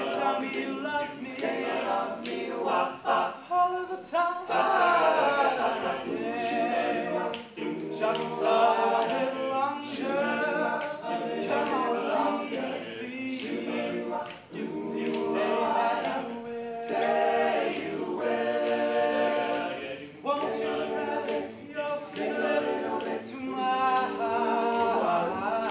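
All-male a cappella group singing in several-part harmony, voices only with no instruments.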